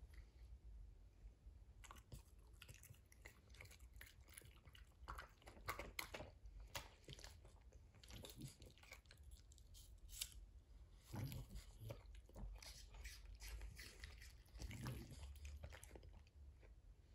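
Faint, irregular chewing and crunching of fruit pieces, in short clusters of crackly bites.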